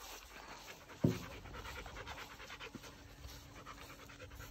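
Dog panting rapidly and steadily, with one short thump about a second in.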